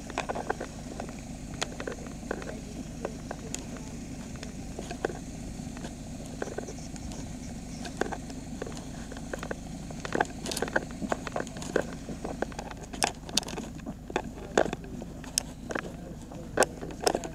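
Heavy truck engine running low and steady at a crawl, with a scatter of sharp clicks and knocks that grow more frequent in the second half.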